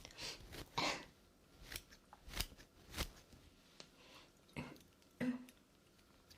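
Scissors snipping through wig hair: about half a dozen separate crisp snips, spaced irregularly.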